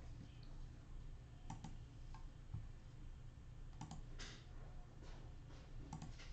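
Faint, irregular clicking: several short clicks at uneven intervals, with one slightly longer click about four seconds in, over a low steady background hum.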